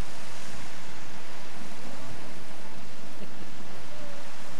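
Steady rush of wind and choppy sea water, with wind buffeting the microphone.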